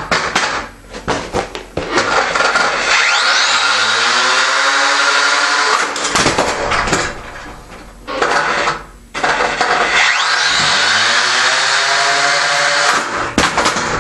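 Small combat robot's electric motors whining up in pitch twice, each run lasting several seconds, with sharp knocks and clatter of the robot in its test box around and between the runs. The robot is being run from its side during a self-righting attempt.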